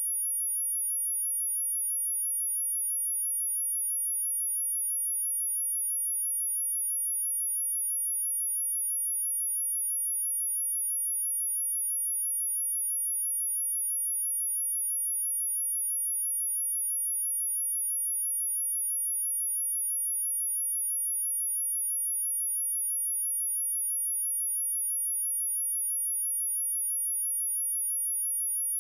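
A steady, unbroken 10353 Hz sine-wave test tone, a single high-pitched whistle-like pitch, as used to test speakers and shake water or dust out of them.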